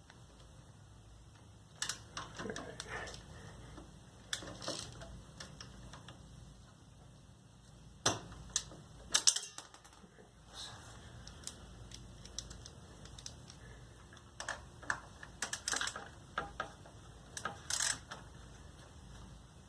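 Scattered clicks and clinks of hand tools, socket and driver on metal parts, some in quick little runs, as exhaust bolts are worked on.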